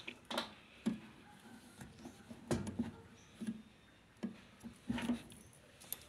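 Irregular light knocks and clicks from hand handling inside an opened tumble dryer's housing.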